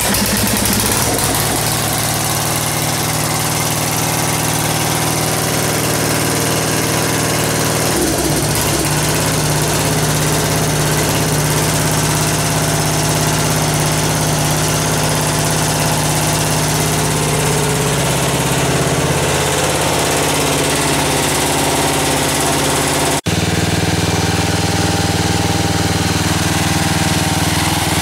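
1975 Gilson Hydro 16 garden tractor's engine running steadily just after starting, its note shifting slightly about a third of the way in. Near the end there is a brief sharp break, and then it runs on evenly.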